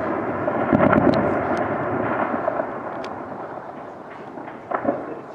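Gunfire from an armed clash: a few sharp shots over a rolling, echoing rumble that fades away, then another burst of shots near the end.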